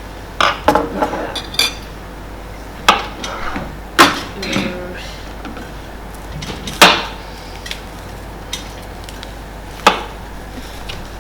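Knife chopping strawberries in half, its blade knocking sharply on the surface below about eight times at irregular gaps, loudest about four and seven seconds in.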